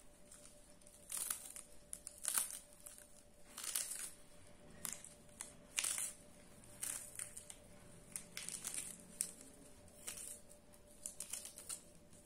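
Fresh spinach leaves being plucked and torn from their stems by hand, crisp rustling and snapping in short irregular bursts.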